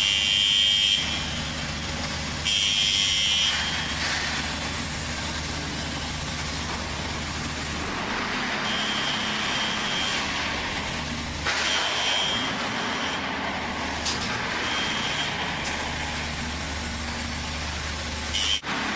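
Concrete block plant machinery running at the curing racks: a steady low hum, a burst of hiss a few seconds in, and a short high-pitched tone that recurs every few seconds.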